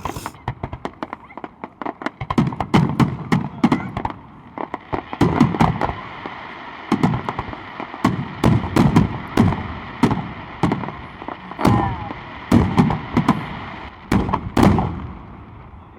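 Fireworks bursting: a continuous run of sharp cracks and deep booms at irregular intervals, several close together at a time, over a steady background hiss.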